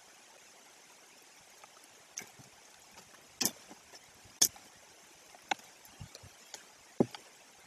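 Sharp knocks and cracks from the stick nest as two young white-tailed eagles flap their wings and jostle on it, about half a dozen strokes scattered through the middle and end. A steady faint hiss lies underneath.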